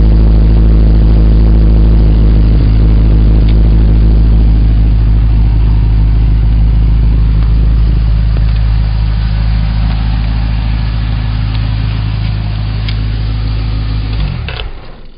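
Holden Commodore SV8's 5.7-litre LS1 V8 idling steadily and loud through a free-flowing straight-through catback exhaust. Near the end the engine is switched off and the idle dies away.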